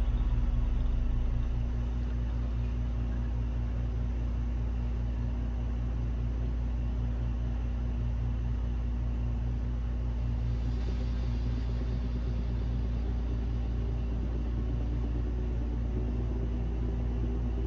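A steady low hum with a few constant tones above it, unchanging throughout.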